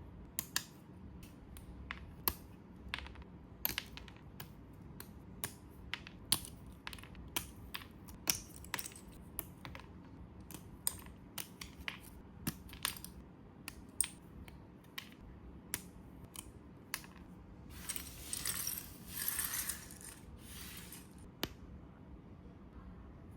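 Small hard plastic model-kit parts clicking and tapping as they are handled, dozens of sharp irregular clicks, with a short rustle about three-quarters of the way through.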